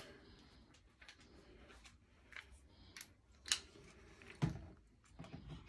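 A few faint clicks and scrapes of an LED ceiling light fixture's base being twisted to lock into its mounting slots, the loudest a knock about four and a half seconds in.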